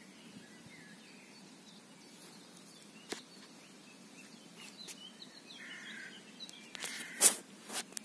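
Quiet outdoor ambience with faint, scattered songbird chirps. A few sharp clicks or knocks come near the end, the loudest about seven seconds in.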